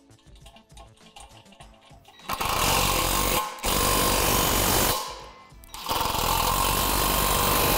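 Cordless impact driver hammering a bolt tight through a bracket on a steel pole, in three runs of one to two seconds each with short pauses between, starting about two seconds in.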